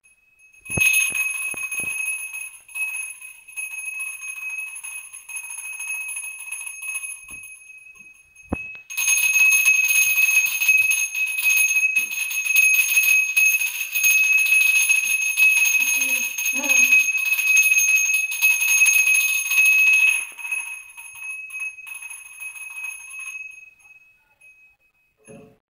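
Small hand-held puja bell rung continuously in worship, a bright steady ringing. It starts about a second in, breaks off briefly around eight seconds, comes back louder, and fades out near the end.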